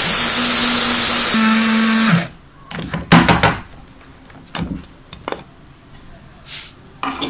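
Electric blade coffee grinder running loudly for about two seconds, grinding flax and black sesame seeds, then spinning down and stopping. A few clicks and knocks follow as its lid is taken off.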